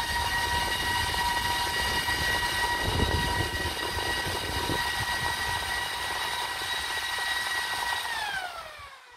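Delta AFC0612DE 60 mm server fan running flat out on 13 V with a loud, high whine over an air rush, its pitch edging up slightly at the start as the voltage is raised. About eight seconds in the power is switched off and the whine falls in pitch and fades as the fan spins down.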